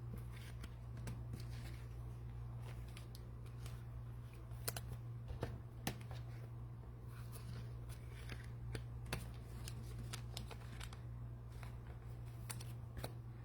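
Trading cards being handled and sorted by hand: scattered light clicks and taps of card stock, over a steady low hum.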